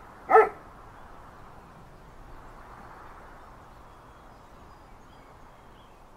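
A dog barks once, a short sharp woof just after the start, followed by faint steady outdoor background noise.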